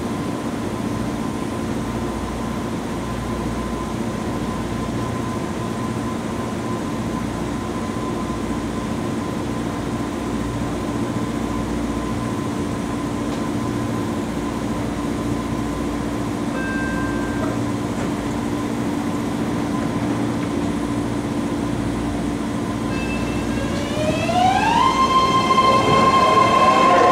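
A BART train standing at an underground platform, with a steady hum and a pulsing low rumble. A brief two-note tone sounds about two-thirds of the way through. Near the end the train starts to pull out, and its electric propulsion gives a stepped whine that rises in pitch, levels off and grows louder.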